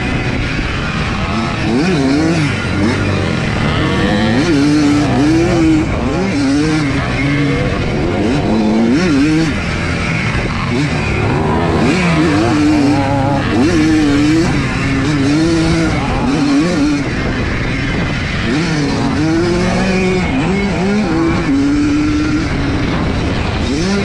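1982 Yamaha YZ100's two-stroke single-cylinder engine racing, its revs rising and falling again and again as the rider works the throttle through corners and gear changes.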